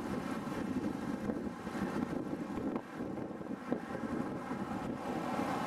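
Steady wind rush on the microphone of a camera riding along on a road bicycle at speed, with a light knock or two about halfway through.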